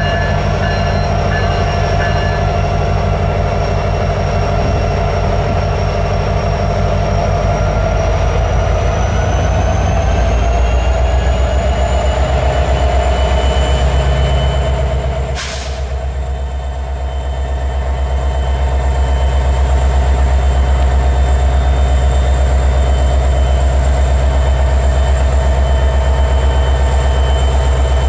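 Freight train with diesel-electric locomotives running, a steady machine sound with a high whine that rises in pitch around ten seconds in. A single sharp click comes just past halfway.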